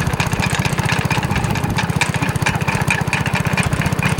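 Mini tractor's small engine running steadily, with a rapid, even beat.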